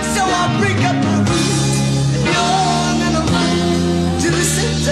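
Rock song with a singing voice over held bass notes and guitar, the bass note changing about once a second.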